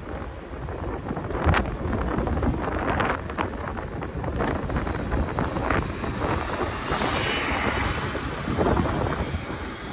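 Wind buffeting the microphone over the low road rumble of an electric scooter riding along a city street, with a few short knocks from bumps. A higher hiss swells about seven seconds in.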